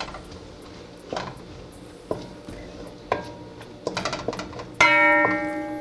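A spoon stirs diced onions in butter in an aluminium pot, clinking and scraping against the metal, over background music with plucked notes. Near the end a loud guitar chord comes in and rings on.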